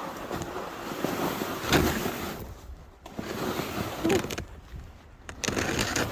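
A person hauling a sled uphill through snow: crunching and scraping steps and runners, with wind on the microphone, in uneven surges that drop off briefly twice.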